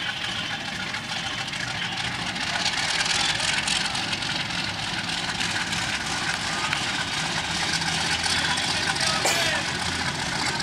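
Diesel locomotive engine running as it hauls a passenger train at low speed, a steady low drone that grows gradually louder, with voices in the background.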